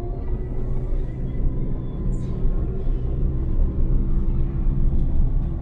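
Steady engine and road rumble heard from inside the cabin of a Fiat Palio G1 driving along.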